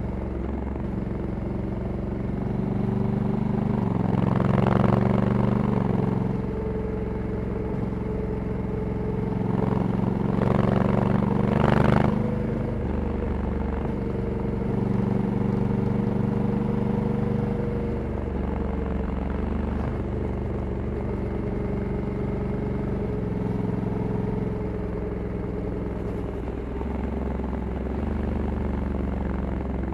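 A Honda Africa Twin 1100's parallel-twin engine running through its stock exhaust while riding. The engine note steps up and down in pitch several times as the DCT gearbox changes gear. Twice a louder rush of noise swells over it, around five and around eleven seconds in.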